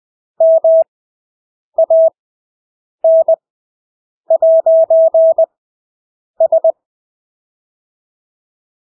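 Morse code sent as a steady, single-pitched beep keyed on and off in short and long elements at 20 words per minute, with the wide Farnsworth gaps between characters. Five characters come with silence between them, the fourth much longer than the rest, and a longer pause follows near the end.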